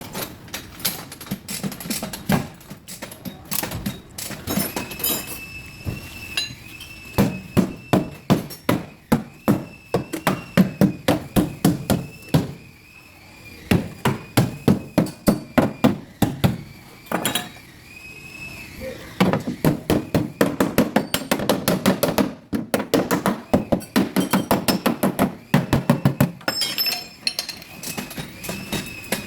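Hammer beating the sheet-metal rear fender of a Mazda 3 back into shape: runs of quick metal strikes, about three or four a second, broken by short pauses, with a high metallic ring hanging between blows.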